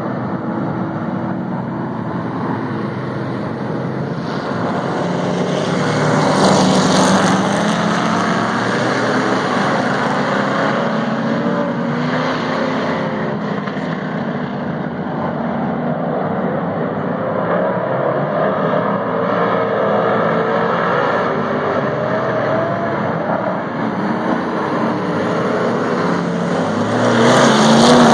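A pack of dirt-track stock cars running laps together, several engines sounding at once as they go around the oval. Near the end the engines climb in pitch and grow louder as the cars come round close by.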